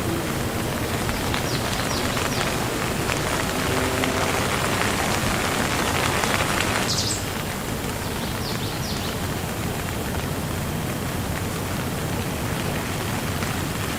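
Steady rain falling on a surface, an even hiss that is a little heavier at first and eases slightly about seven seconds in.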